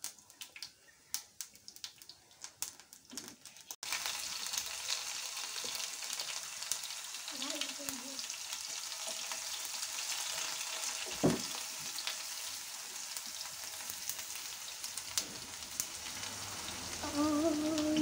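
Mustard and cumin seeds popping in hot oil in a small pan, with scattered sharp clicks. About four seconds in, a steady sizzle of frying begins as chopped pieces cook in the oil.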